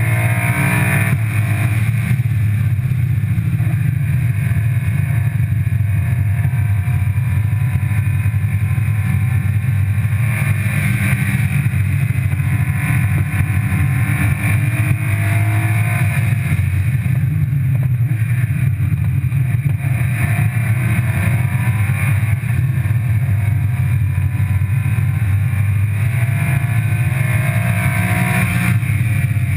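Car at track speed heard through a low, outside-mounted camera microphone: a steady heavy roar of wind and road noise, with the engine note faintly rising and then dropping back several times as it accelerates and shifts gears.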